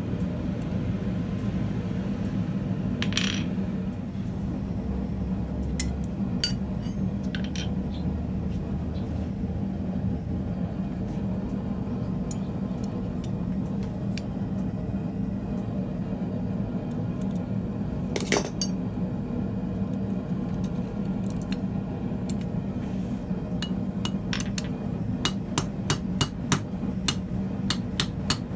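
Hand hammer peening a hot rivet that joins a copper spatula blade to a steel handle on a steel vise. A few scattered metal clinks come first as the parts are set in place, then quick light hammer blows start near the end, about three a second. A steady hum runs underneath.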